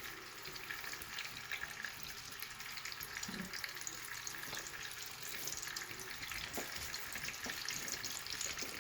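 Meatballs frying in hot olive oil and bacon grease: a steady sizzle with fine crackles.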